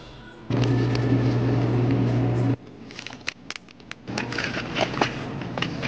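A loud, steady low hum for about two seconds that cuts off sharply, then scattered clicks and crinkles of plastic-wrapped packages being handled on a chilled convenience-store shelf.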